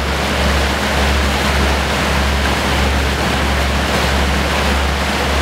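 Boat under way: a steady rush of churning water with a constant low rumble.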